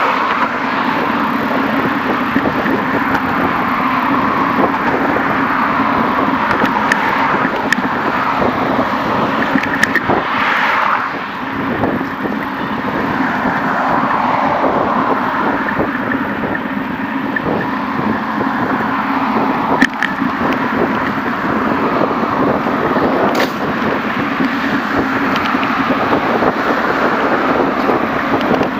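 Steady rushing noise of a bicycle ride alongside road traffic, with cars passing and air rushing over the microphone, and a few sharp clicks from the bike.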